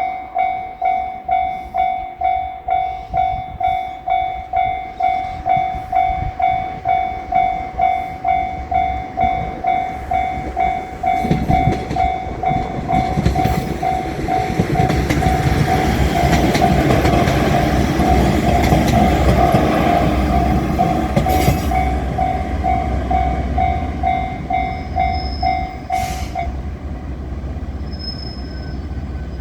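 Japanese level-crossing warning bell ringing its repeated 'kan-kan' strike, about two a second, while a diesel railcar passes over the crossing. The train's rumble and wheel noise build about eleven seconds in, are loudest in the middle and then fade. The bell stops shortly before the end.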